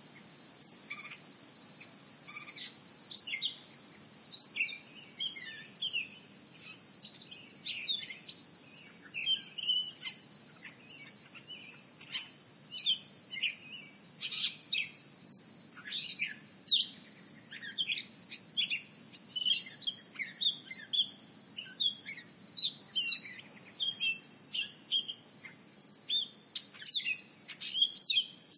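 Outdoor nature ambience: a steady, high-pitched insect trill like crickets, with many short bird chirps scattered over it, coming more thickly after the first several seconds.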